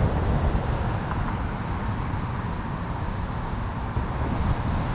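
Wind buffeting an outdoor microphone: a steady, fluttering low rumble with a light hiss over it.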